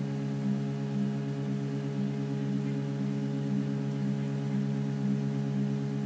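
RapMan 3.1 3D printer's stepper motors singing while printing in ABS: a steady chord of layered pitched tones, the strongest one swelling about twice a second.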